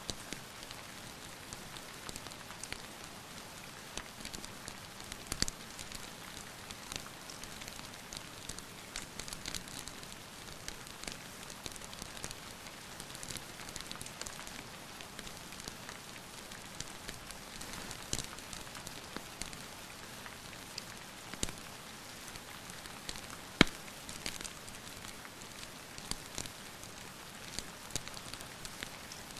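Wood fire in a fireplace crackling with frequent sharp pops, one much louder pop about three-quarters of the way through, over the steady hiss of rain.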